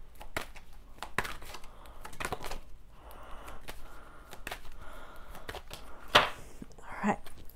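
A deck of large oracle cards being shuffled by hand, the cards clicking and slapping against each other in quick, irregular strokes, with a sharper snap about six seconds in.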